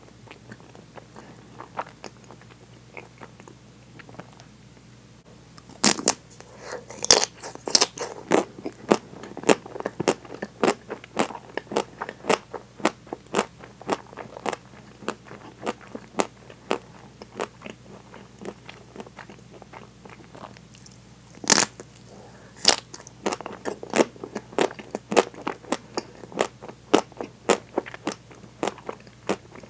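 Biting into a nut-studded, chocolate-coated ice cream bar: the frozen chocolate shell cracks loudly about six seconds in and again twice around twenty-two seconds in. Each bite is followed by many quick, crunchy chews.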